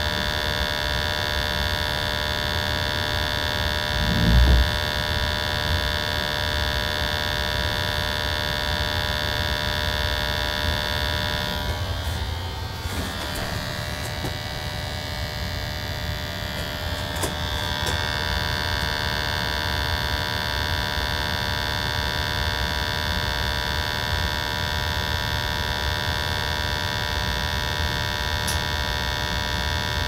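Steady electric hum with several high steady tones from a Testo 320 combustion analyzer's sampling pump, running while it draws flue gas for a live measurement. A short low thump about four seconds in, and the hum dulls for a few seconds midway with a few light clicks.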